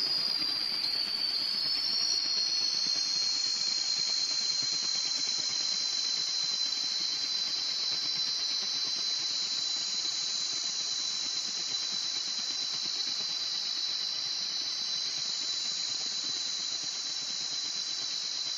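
High-pitched whistling tones: one steady tone, with fainter tones gliding up and down above it about every six seconds, over a steady hiss.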